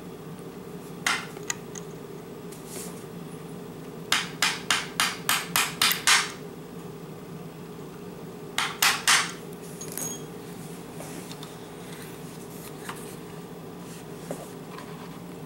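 Hammer tapping a pin punch to drive the detent retaining pin into the front sight block of a Zastava PAP M92 AK pistol, metal on metal. There are a couple of single taps, then a quick run of about eight taps, then three more.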